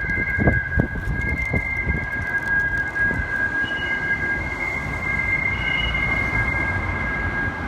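Strong wind blowing through a parking garage, making it whistle: two steady high whistling tones held together, with a third, higher tone coming in briefly twice, over a low, gusting wind rumble.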